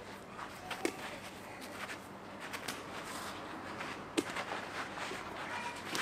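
Rubber medicine ball slapping into hands in a partner throw-and-catch drill: two sharp thuds, about a second in and just after four seconds, over faint outdoor background noise.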